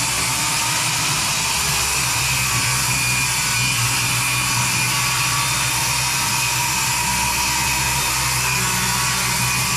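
A power tool running continuously at a steady pitch and level.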